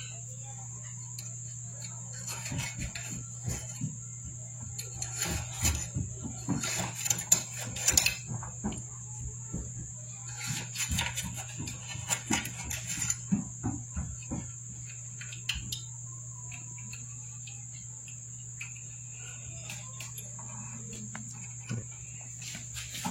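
Light metallic clicks and scrapes as a tie wire is poked into a gas stove's clogged starter-gas tube to dig out insect debris. The clicks come in irregular bursts through the first half and fade out after that. A steady high chirring of crickets and a low hum run underneath.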